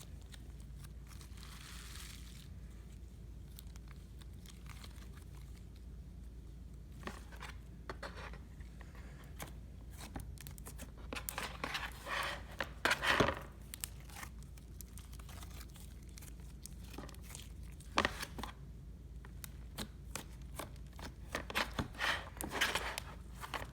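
Dark pink slime with clay worked into it, kneaded and stretched by hand: sticky crackling and clicking in clusters, loudest about halfway through and again near the end, over a faint steady low hum.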